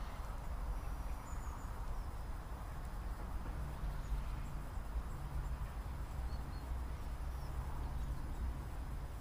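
Outdoor ambience: a steady low rumble with a few brief, faint, high bird chirps.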